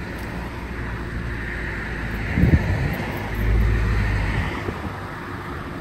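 Wind buffeting the microphone over a steady outdoor hiss, with a brief low bump about two and a half seconds in and a stronger gust a little past the middle.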